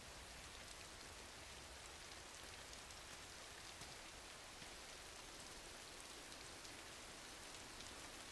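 Faint, steady rainfall: an even hiss of rain on the ground.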